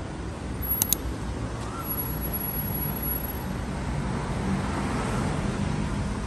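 Street ambience of road traffic: a steady hum of passing cars, with two sharp clicks about a second in.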